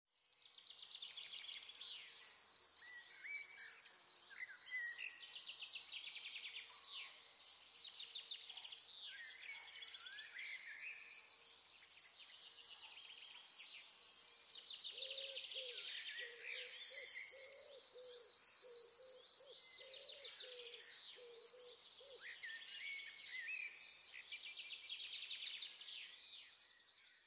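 Summer meadow ambience: insects chirring in a steady, high-pitched, pulsing drone, with scattered bird chirps over it. About halfway through comes a run of short, low, repeated calls. The sound fades in at the start and fades out at the end.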